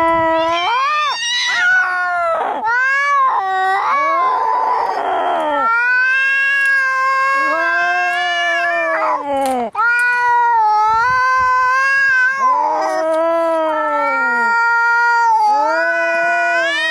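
Angry cats yowling in a fight: long, drawn-out, wavering howls one after another, with a harsh, raspy cry about four seconds in.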